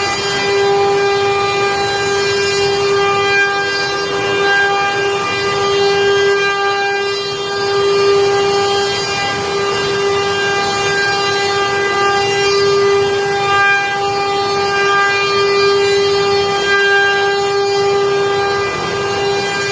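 CNC router spindle running with a steady high whine while cutting wood, with a rough cutting noise underneath.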